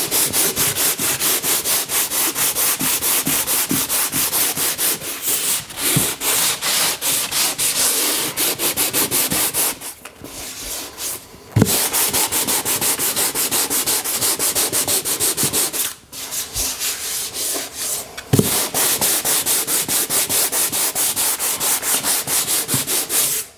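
Hand sanding pad with sandpaper rubbed back and forth over drywall (sheetrock) in rapid, even strokes, pausing briefly a few times.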